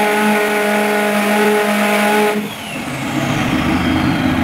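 The RTU pseudo-adiabatic turbocharged 2.5-litre five-cylinder engine running on an engine dyno, holding a steady note. About two and a half seconds in, the sound drops, leaving a lower rumble and a high whistle that falls slowly in pitch.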